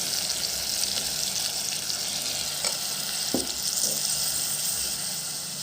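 Chicken pieces sizzling in a frying pan with vinegar, a steady hiss, with a couple of faint knocks about three seconds in.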